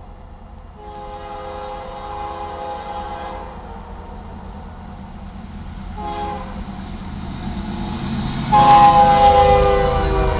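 Chord horn of an approaching BNSF GE ES44AC freight locomotive sounding for a grade crossing: a long blast, a short one about six seconds in, then a much louder long blast near the end as the locomotive reaches the crossing. Under the horn, the rumble of the diesel locomotives grows as the train nears.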